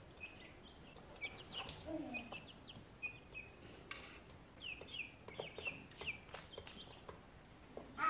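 Young chicks peeping over and over in short, high, falling calls, with a lower cluck from an adult chicken about two seconds in.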